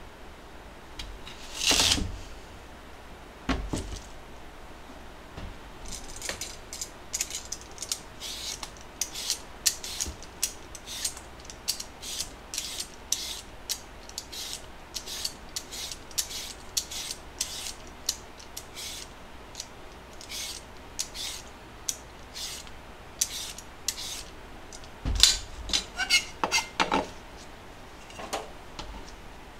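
A kitchen knife cuts through a daikon radish and knocks twice on a plastic cutting board, then a vegetable peeler scrapes the skin off a cut piece in quick short strokes, about two a second. A few louder knocks near the end as the pieces are set down on the board.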